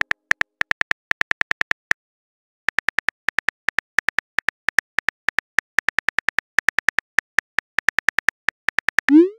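Typing clicks of a texting app's on-screen keyboard: a quick run of short, even ticks, one per letter, pausing briefly about two seconds in. Near the end a short rising whoosh as the typed message is sent.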